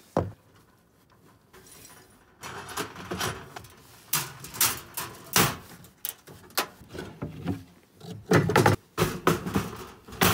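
Coleman two-burner propane camp stove being shut and packed away: a sharp click just after the start, then, from a couple of seconds in, a run of metal clanks, knocks and rattles as the lid is closed and the stove is set down into a wooden storage box, loudest near the end.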